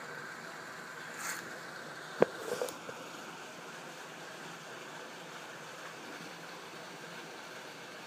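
Steady rushing noise of churning, bubbling pool water, with a single sharp knock about two seconds in and a few softer knocks around it.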